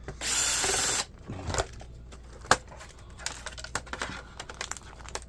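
Laptop parts being pried apart and handled during teardown: a loud ripping hiss lasting under a second, then a sharp snap and many light plastic clicks and rattles.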